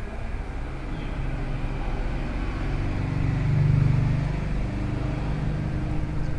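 A motor vehicle's engine running, low and rumbling, swelling to its loudest about three and a half seconds in and then easing off.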